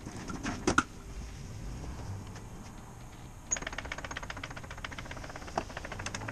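Two sharp metallic knocks, then from about three and a half seconds in a rapid, even run of clicks, like a ratchet being worked.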